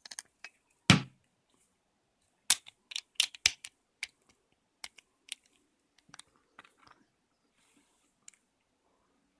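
Sharp clicks and knocks of small metal parts and tools on a Citroen C1 door lock cylinder as stuck tumblers are worked loose, with one heavier knock about a second in and a quick run of clicks a few seconds later.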